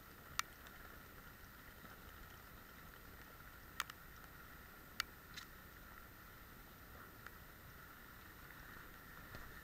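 Faint, muffled rainy-street ambience picked up through a GoPro's waterproof housing: a steady low hiss with three sharp ticks, one just after the start and two close together around four to five seconds in.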